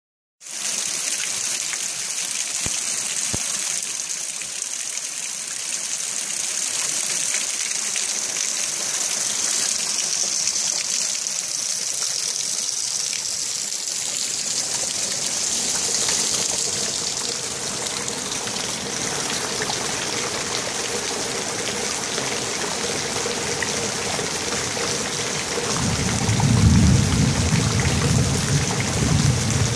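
Steady rain falling, an even hiss that grows fuller about halfway through. Near the end a low rumble of distant thunder swells in beneath it.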